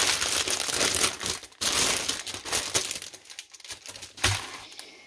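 Clear plastic packaging crinkling and rustling as hands pull a bundle of small plastic bags of diamond-painting drills out of a plastic sleeve and handle it, with a sharp click about four seconds in. The crinkling fades toward the end.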